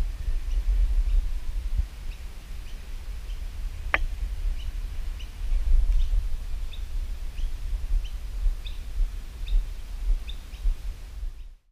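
Wind buffeting the microphone as a fluctuating low rumble, with a small bird chirping repeatedly, about one to two short high chirps a second. A single sharp click about four seconds in.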